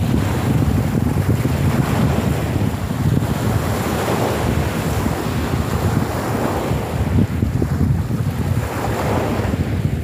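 Small choppy sea waves breaking and washing onto a pebble beach, swelling and easing every few seconds, under heavy wind noise rumbling on the microphone.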